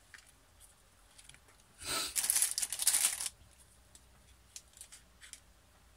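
Cellophane or plastic wrapping crinkling for about a second and a half, about two seconds in, as craft items are handled in a packed gift box, followed by a few light clicks.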